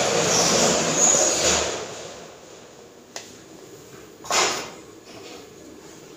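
Kitchen handling noises on a stone countertop: a loud rushing scrape for about two seconds, a sharp click about three seconds in, and another short scrape just after four seconds.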